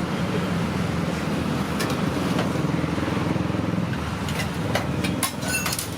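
Roadside traffic noise, with vehicle engines running steadily. A few sharp clinks come near the end.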